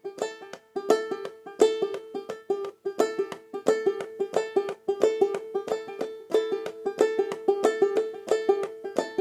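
Banjolele played clawhammer style on open strings: a steady eighth-note run of bright plucked notes, with the strokes on 2 and 4 played loud and those on 1 and 3 almost ghosted, giving an old-time backbeat pulse.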